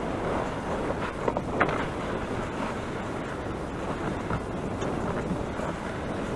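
Sled towed over snow: a steady scraping hiss from the runners, with wind buffeting the microphone. A couple of short sharp clicks or creaks about a second and a half in.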